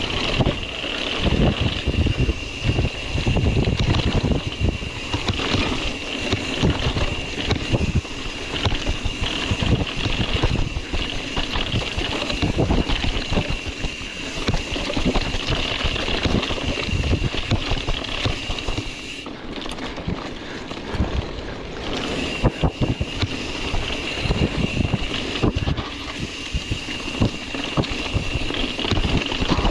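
Wind buffeting the microphone over the thumps and rattle of a mountain bike riding over rough, rutted trail, with a steady high-pitched whine that drops out for a couple of seconds about two-thirds of the way through.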